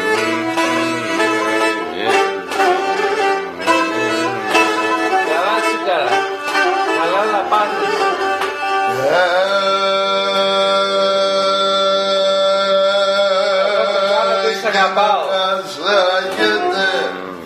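Pontic lyra (kemençe) bowed in a lively folk melody, its strings sounding together, with singing alongside; from about nine seconds in, one long held note lasts some five seconds before the melody moves on again.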